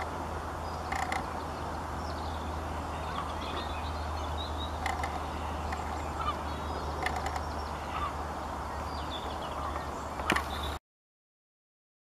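Waterfowl calling now and then over a steady low hum of outdoor background noise, with a few sharp clicks; the loudest click comes about ten seconds in and the sound cuts off shortly after.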